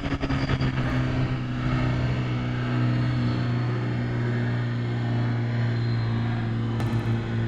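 Honda CBR600RR's inline-four engine running at a steady, unchanging pitch while the motorcycle rolls along slowly, heard from a helmet camera.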